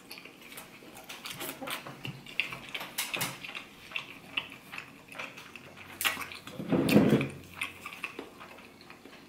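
Close-up chewing of a soup dumpling: many small wet, smacking mouth clicks, with one louder, lower mouth sound about seven seconds in.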